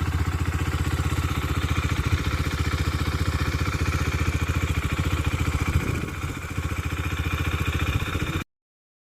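Husqvarna Svartpilen 401's single-cylinder four-stroke engine idling steadily through its stock exhaust, an even rapid pulse; the sound cuts off abruptly about eight seconds in.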